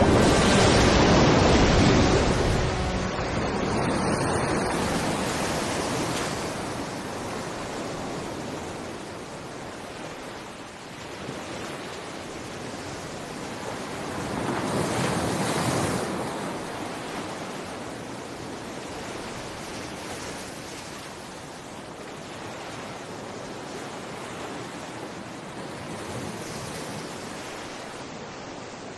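Ocean surf washing in, a loud rush of water at the start that fades away, then swells again about halfway through before settling to a softer wash.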